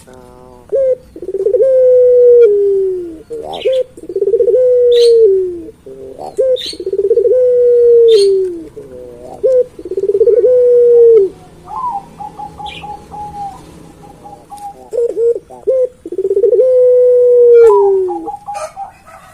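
Puter pelung dove cooing over and over: five long drawn-out coos, each held level and then dropping in pitch at the end, with shorter notes between them. Brief high chirps come in now and then.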